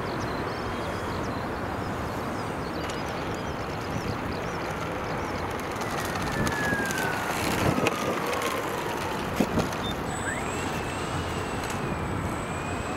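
Radio-control model F7F-3 Tigercat's twin motors and propellers running as it lands and rolls on asphalt, over a steady hiss. A thin whine falls in pitch over a few seconds as the throttle comes down, then another rises about ten seconds in as it taxis.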